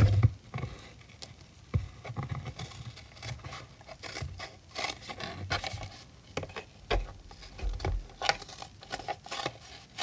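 Scissors cutting through a flattened, foil-lined drink carton: a run of irregular snips and crackles, with the stiff carton crinkling as it is handled.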